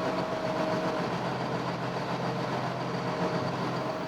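An engine running steadily at low speed, with a faint steady whine over its hum.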